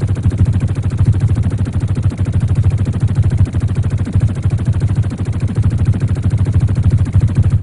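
Synthesized sci-fi sound effect: a loud, very rapid, unbroken stream of low pulses, like automatic weapon fire, that stops abruptly near the end.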